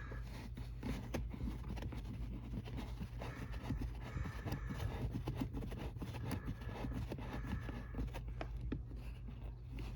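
Faint scattered clicks and light scrapes of parts being handled, over a steady low hum.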